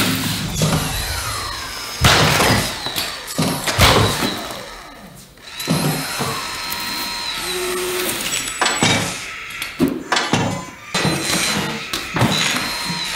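Robot joint motors whirring in repeated rising and falling whines, mixed with metallic clanks and heavy thuds as the robot falls and is knocked about on a concrete floor.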